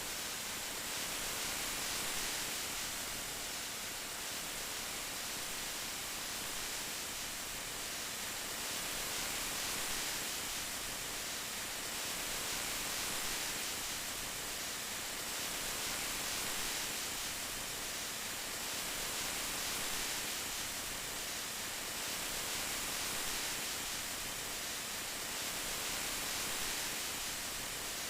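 Steady rain falling, a dense even hiss that gently swells and eases every few seconds.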